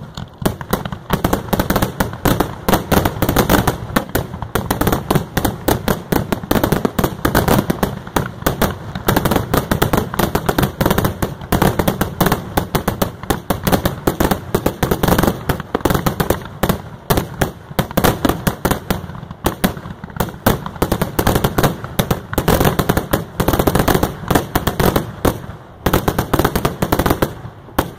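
Aerial fireworks going off in a loud, dense barrage, many bangs and crackles a second without a break.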